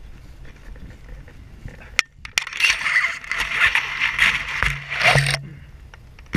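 Wind on the microphone during a low glide in to land, then a sharp knock about two seconds in at touchdown, followed by about three seconds of loud rustling as the paramotor pilot and his gear move through dry field stubble, stopping near the end.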